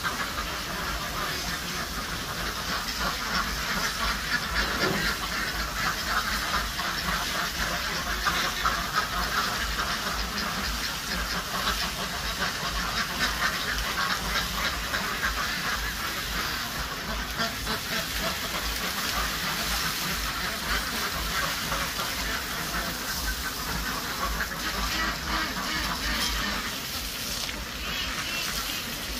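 A flock of ducks quacking continuously, many calls overlapping, over a steady hiss.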